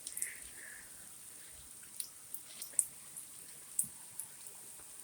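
Heavy rain falling as a steady hiss, with scattered drops tapping sharply on a nearby surface.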